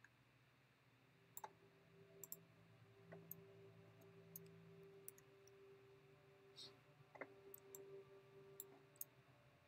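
Near silence: faint scattered clicks of a computer mouse over a faint steady hum.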